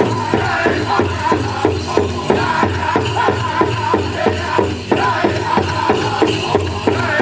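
Powwow drum group playing a chicken dance song: a big drum struck in a fast, even beat of about four strokes a second, under high group singing.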